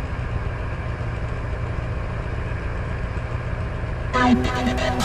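Snowmobile engine running with a steady low rumble. About four seconds in, music comes in abruptly over it.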